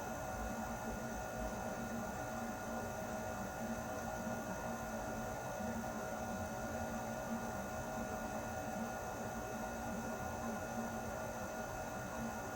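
Air conditioner running steadily: a constant hum with a few steady tones over an even hiss, the lowest tone wavering slightly.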